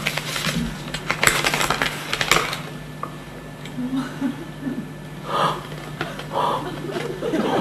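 Paper envelope being torn open and handled, with crackling paper rustle for the first two and a half seconds, then quieter, softer handling of the paper.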